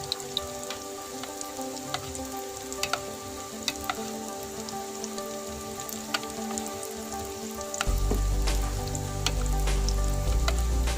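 Battered quail eggs deep-frying in hot oil: a steady sizzle broken by frequent sharp pops and crackles. A deeper steady sound joins about eight seconds in.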